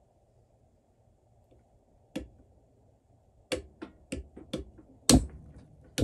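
Sharp metallic clicks, spaced irregularly, as a click-type torque wrench on an armorer's wrench tightens an AR-15 castle nut to 40 foot-pounds; the click marks the set torque being reached. One click comes about two seconds in, then a quicker run of them, the loudest about five seconds in.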